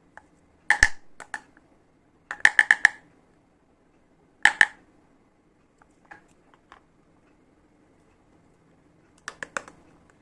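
Pieces of a mini toy kitchen set clicking and clacking as they are handled and set down: sharp taps in separate clusters, the loudest a quick run of four or five about two and a half seconds in, with a few more near the end.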